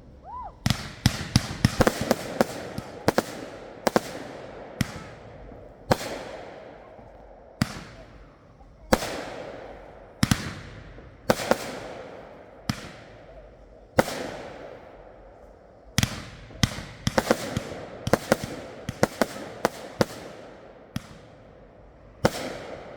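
Consumer fireworks going off in quick succession: sharp bangs every half second to second and a half, some in rapid clusters, each followed by a fading hiss.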